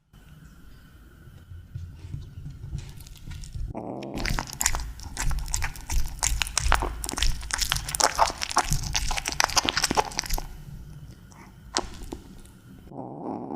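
Kittens eating tuna: a dense run of quick wet chewing and smacking clicks, loudest in the middle of the stretch, over a low steady hum.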